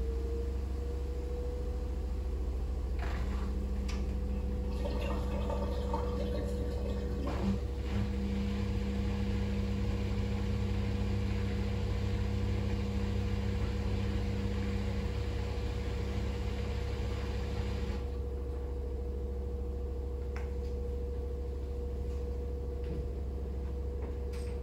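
Fisher & Paykel WM1480P front-loading washing machine in its intermediate spin: the drum runs with a low hum and a steady whine. Water rushes and gurgles through the machine from about three seconds in and stops abruptly about eighteen seconds in.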